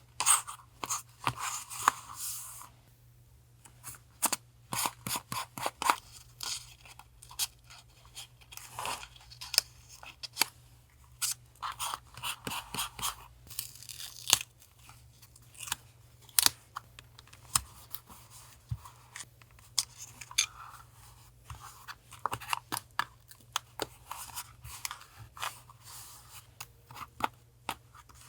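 Paper collage crafting: paper and ephemera being handled, cut and torn. It comes as an uneven run of crisp clicks and crinkles with short rustling stretches, and a brief lull about three seconds in.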